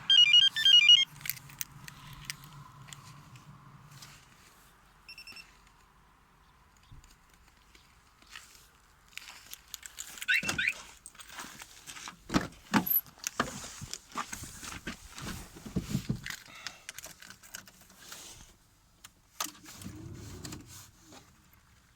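A quick run of high electronic chirps at the start, then a low hum for a few seconds. After that come scattered clicks and jangles of keys being handled.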